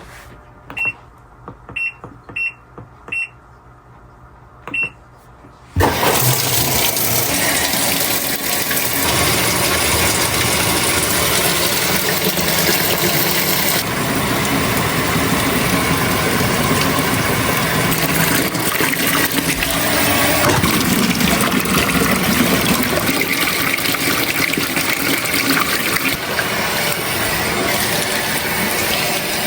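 Coffee maker beeping five times as its buttons are pressed, then, about six seconds in, the loud steady rush of its water pumping through as it starts to brew.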